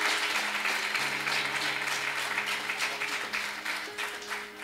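Crowd applauding, dying down near the end, over soft instrumental background music holding long low notes.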